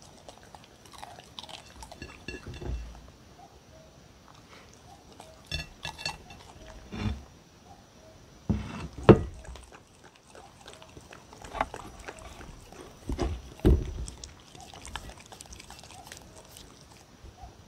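A puppy licking and chewing cucumber scraps off a ceramic plate, in wet irregular bursts, with a few louder knocks, the loudest about nine seconds in.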